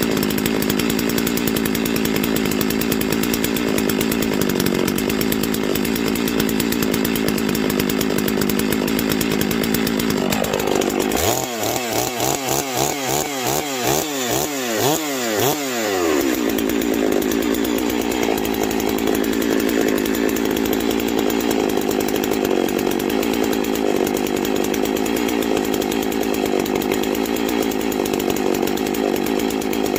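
Farmertec Holzfforma G660 two-stroke chainsaw idling after a cold start. About a third of the way in, its engine speed swings up and down several times for some five seconds, then it settles back to a steady idle.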